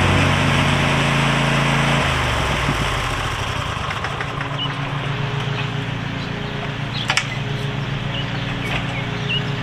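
Zero-turn riding lawn mower's engine idling steadily, with a short clank about seven seconds in. Background music cuts out about two seconds in.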